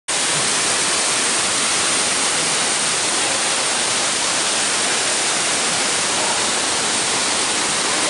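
Waterfall pouring over rock into a pool: a steady, even rush of falling water.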